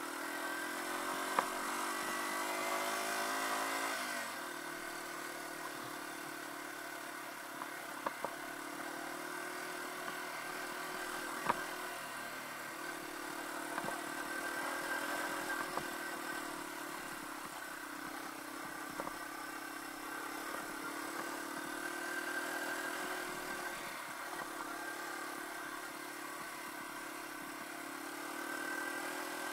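2015 Yamaha TW200's single-cylinder four-stroke engine pulling the bike along a dirt trail. It rises in pitch for the first few seconds, falls sharply about four seconds in, then runs at a steady cruise with small rises and falls in revs, with a few sharp clicks.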